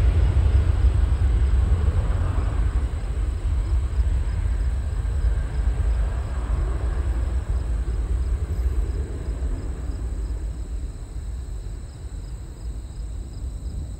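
Jet airliner engines, a deep rumble that slowly fades as the aircraft moves away.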